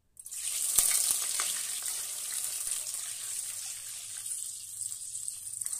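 Milk poured from a bowl into hot melted ghee in a wok, hissing and sizzling as it hits. The sizzle starts suddenly and eases off gradually over the next few seconds.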